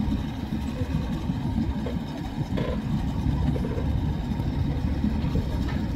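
Low, steady rumble of engines idling.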